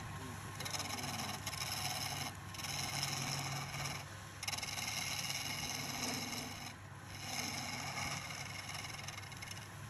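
A wood lathe runs with a steady hum while a hand-held chisel scrapes the spinning wooden spindle in about four passes, each a scrape of about two seconds with short breaks between.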